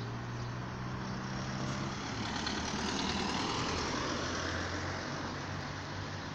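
Road traffic: motor vehicles running with a steady low engine hum, and tyre and engine noise swelling as a vehicle passes about three seconds in, then easing off.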